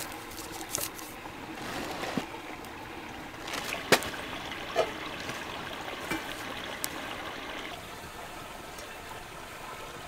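Small stream trickling steadily, with a few short sharp clicks and knocks over it, the loudest about four seconds in.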